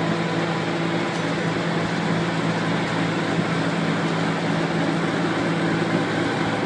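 Large eight-wheel-drive farm tractor's 19-litre Cummins diesel engine running at a steady idle: an even, unchanging hum.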